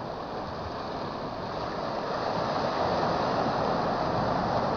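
Ocean surf rushing, swelling louder about two seconds in.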